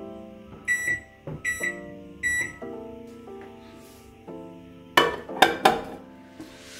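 Microwave-convection oven keypad beeping as the temperature and timer are entered: a few short, high beeps in the first two and a half seconds. A quick cluster of clacks follows about five seconds in.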